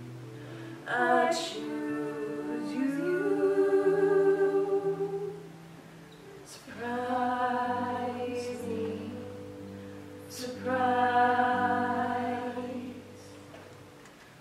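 Choir singing long held chords in three swelling phrases, the first about a second in, the second near the middle and the third about two-thirds of the way through, with lower held notes underneath.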